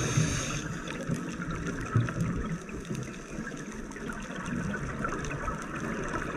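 Underwater sound of a scuba diver's breathing: bubbles from the regulator gurgling and rushing past the camera housing, louder at the start and again near the end, with a steady water hiss between.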